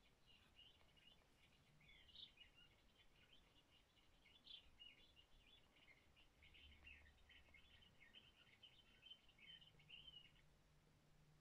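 Faint house martin twittering: a rapid, continuous chatter of high chirps that stops about ten seconds in.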